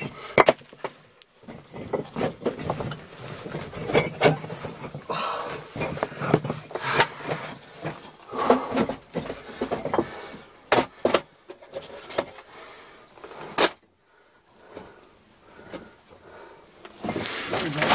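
Irregular knocks, scrapes and rustling of people moving about and handling things in a cramped cellar shelter strewn with loose bricks, with a short lull about fourteen seconds in.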